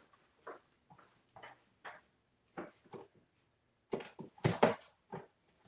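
Someone reaching for and handling craft supplies: a series of short rustles and knocks, with a louder clatter of items being moved about four seconds in.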